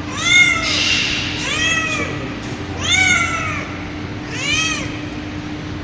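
Mother cat calling her kittens: four meows about a second and a half apart, each rising and then falling in pitch.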